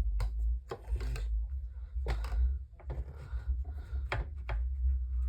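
Irregular rubbing and knocking from a plastic fan blade being scrubbed by hand with a disinfecting wipe, over a steady low hum.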